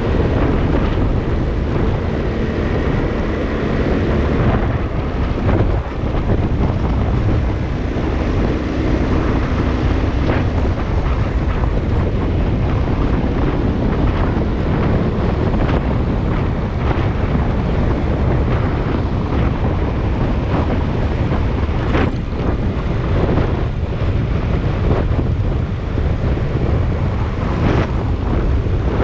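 Steady wind noise on the microphone of a moving motorcycle, with the motorcycle's engine faintly underneath.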